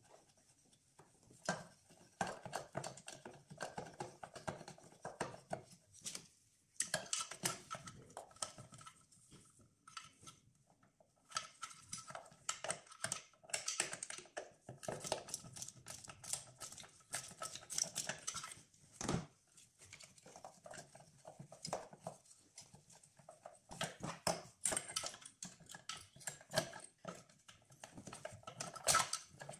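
Runs of quick, light clicking and rattling, broken by short pauses, as gloved hands work on hardware and plastic parts around the EGR valve in an engine bay.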